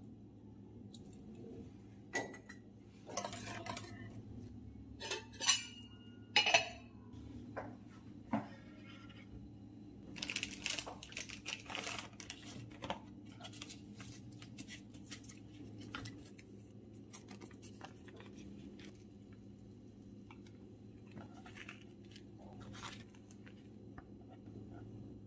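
Kitchen handling sounds: a few sharp clinks and knocks of utensils against a pan in the first seconds, then crinkling and rustling of plastic packaging and paper as frozen puff pastry sheets are unwrapped and separated, fading to soft occasional handling noises. A low steady hum runs underneath.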